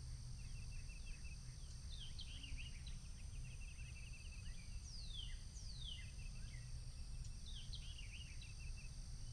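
Wild birds singing faintly: quick trilled chirps throughout, with two clear down-slurred whistles about halfway through, over a low steady background rumble.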